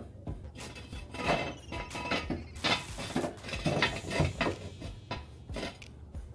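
Hydraulic floor jack being worked: uneven metal clinks and short squeaks, the loudest coming about once a second.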